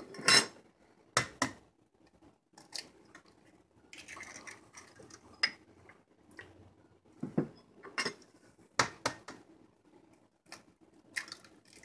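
Eggs being cracked and tipped into a ceramic mixing bowl: a series of irregular sharp taps and knocks of eggshell and a small ceramic dish against the bowl.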